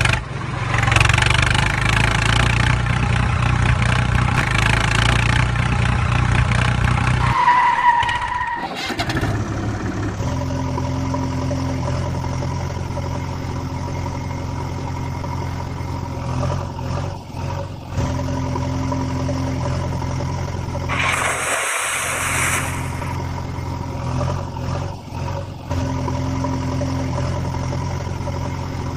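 Engine sound effect laid over toy vehicle footage, running steadily. It is louder and brighter for the first seven seconds or so, shifts to a steadier, lower hum about ten seconds in, and has a brief rush of noise a little after twenty seconds.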